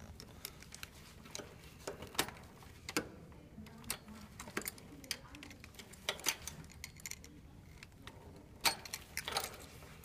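Needle-nose pliers and wire leads clicking and rattling against the metal spade terminals of an air-conditioner contactor as the leads are pulled off: scattered small metallic clicks, a few sharper ones about two seconds in and near the end.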